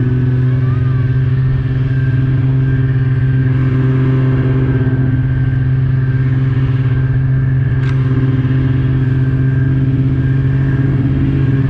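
Snowmobile engine running at a steady cruising speed, a loud, even drone heard from on the moving sled. A single sharp click about eight seconds in.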